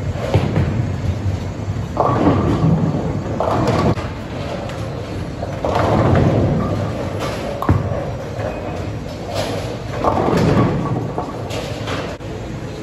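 Bowling alley noise: thuds and rumbling crashes of balls and pins, each about a second long and several of them, echoing in a large hall.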